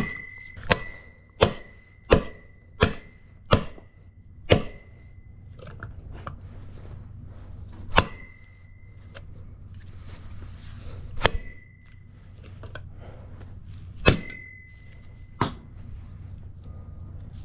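Hammer blows on a socket-and-extension drift in a full-floating axle hub, driving out the old grease seal and inner wheel bearing. Seven steady strikes about 0.7 s apart, each with a short metallic ring, then four slower, spaced-out blows.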